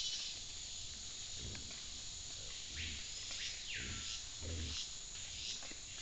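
Peccaries feeding on a forest trail: short low grunts and rooting sounds about once a second, under a steady high hiss of insects. About three seconds in, a high whistle falls in pitch.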